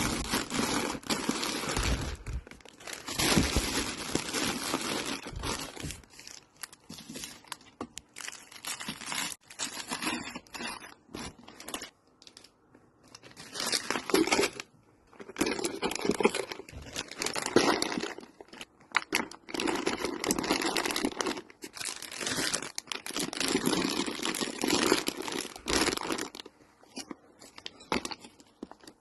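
Plastic snack packets and wrappers crinkling and rustling in irregular bursts as they are handled and packed away, with scattered clicks and knocks.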